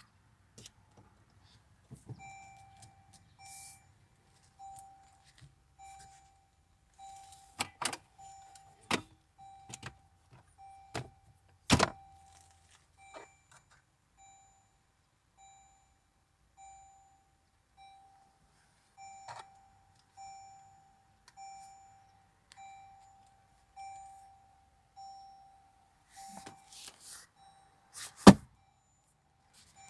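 Toyota Hilux cabin warning chime sounding a single steady tone about once a second, starting about two seconds in. Several sharp knocks and clicks fall over it, the loudest near the end.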